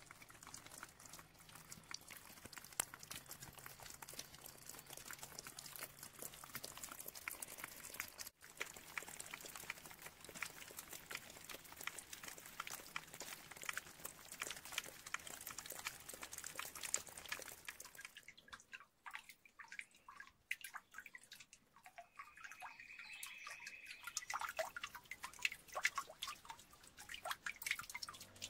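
Water dripping and trickling off a wet, mossy rock cliff face into a small pool: a faint, dense patter of drops that thins to fewer, separate drips about two-thirds of the way through.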